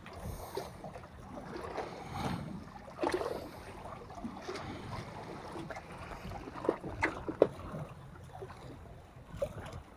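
Sea water lapping among concrete breakwater blocks, with wind on the microphone and a few short knocks and rustles of handling.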